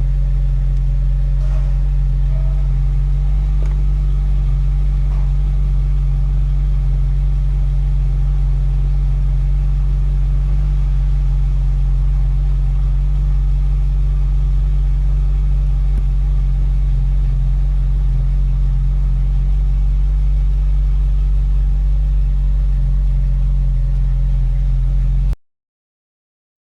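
Ferrari 458 Spider's 4.5-litre V8 idling steadily, then cutting off suddenly near the end.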